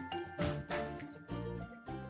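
Background music: a melody of short, separately struck pitched notes.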